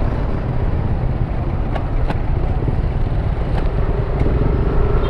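Ride noise from a Yamaha NMAX motor scooter on the move: a steady low rumble of the engine and road with wind noise over the microphone, and a few faint clicks.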